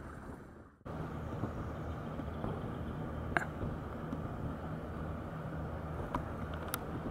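Open-air river ambience heard from a kayak: a steady low engine hum under a wash of noise, with a few faint ticks. The sound drops out briefly under a second in, then comes back abruptly.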